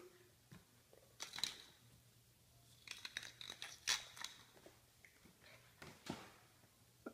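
Faint, scattered clicks and scuffs of a small puppy's claws scrabbling on a tile floor, in a few short clusters.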